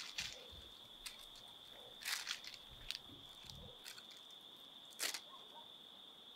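A steady high-pitched tone under a few scattered sharp clicks and rustles, the loudest about five seconds in.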